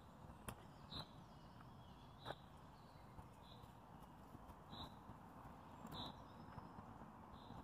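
Faint woodland ambience with a bird repeating a short, high call about once every second or so, and a few soft clicks.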